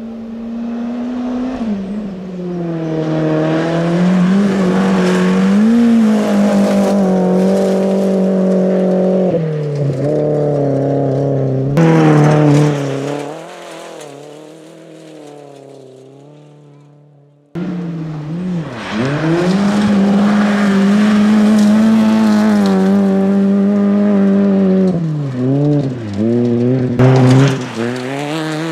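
Ford Fiesta rally cars at full throttle on a gravel stage, the engine note climbing and dropping again and again with gear changes. The first car's engine fades away about halfway through, then a second car comes in loud and drives hard past.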